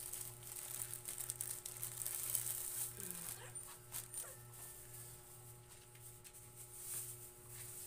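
Bedding rustling and crinkling as sheets and pillows are handled and spread over a sofa bed, over a low hum that pulses about twice a second.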